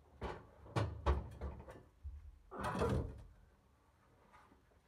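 Bricklayer's trowel knocking and scraping against brick and mortar while a brick is set into an arch: a few sharp knocks in the first couple of seconds, then a longer scrape about three seconds in.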